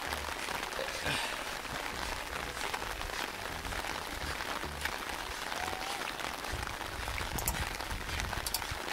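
Steady rain falling on a wet paved road and grass: an even hiss made of many small drop impacts.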